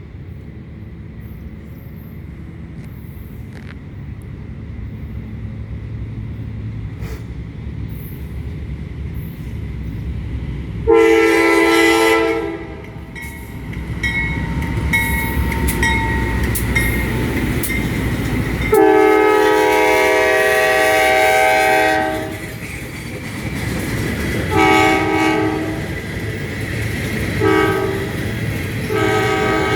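GE C40-9W diesel freight locomotive approaching, its rumble growing louder over the first ten seconds. Its air horn then sounds a series of blasts: two long, then shorter ones, with another starting near the end, in the pattern of a grade-crossing signal.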